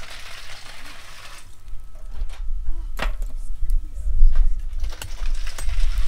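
Charge poured from a metal bucket into the burning top of a clay bloomery furnace, hissing and rattling as it slides in, with a sharp knock about three seconds in. A strong uneven low rumble runs under it from about two seconds on.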